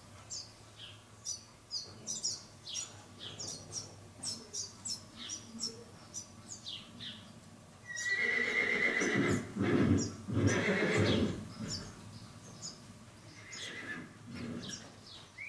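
A john mule colt whinnies once, about eight seconds in: the call starts on a high held note and breaks into several rough, bray-like pulses, lasting about three and a half seconds. Small birds chirp throughout.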